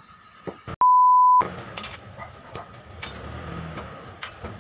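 A loud, high, steady beep lasting about half a second, about a second in, set into a cut in the sound like a censor bleep. After it, a knife blade knocks on snail shells against a wooden plank, sharp taps about twice a second as the tips of the shells are cracked.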